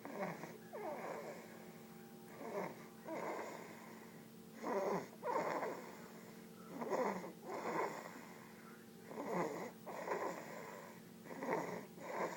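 A sleeping baby snoring, about six breaths at an even pace of one every two seconds or so, each breath a two-part snore that falls in pitch.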